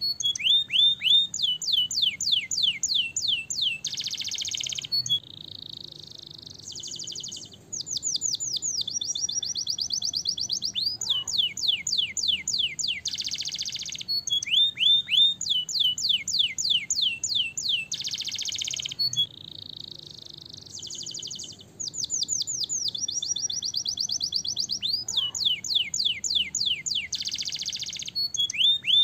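Domestic canary singing: long phrases of rapid, falling whistled notes and fast rolling trills, with a brief quieter passage twice. The same song sequence repeats about every fourteen seconds.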